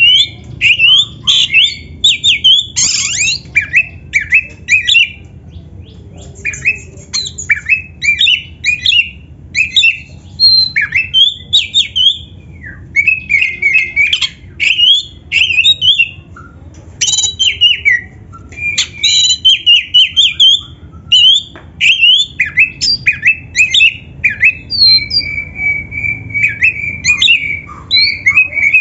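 Oriental magpie-robin (kacer) in full song: a fast, varied run of whistled, rising and falling phrases broken by short pauses, with one long held whistle near the end.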